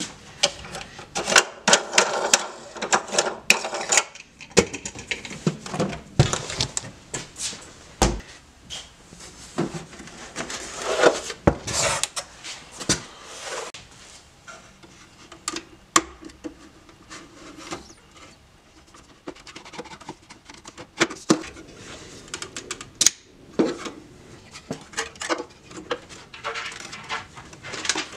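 Hand-work noises in a car's spare-wheel well: irregular sharp clicks, knocks and rustling as the spare wheel, plastic parts and the wiring connector of the AWD control unit are handled.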